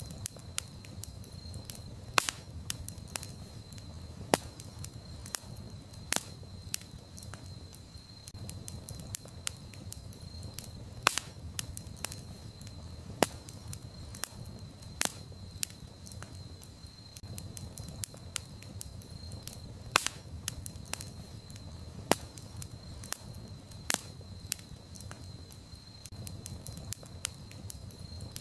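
Campfire crackling, wood snapping with frequent irregular sharp pops over a steady low rumble of burning. A faint, thin, steady high tone runs underneath.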